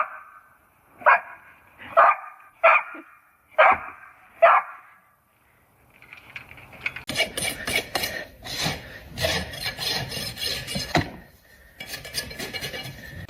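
A dog barks five times, short barks about a second apart. After a brief pause comes several seconds of dense scraping and rubbing noise.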